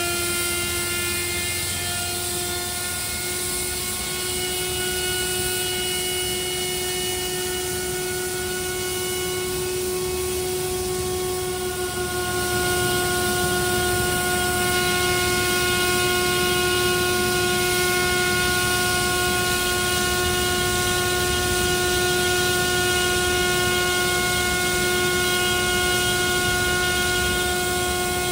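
Jet air starter unit running at its jet-start setting, feeding bleed air through its hoses to the 777-300ER: a steady, loud whine made of several pitches that holds its pitch, growing a little louder about 12 seconds in.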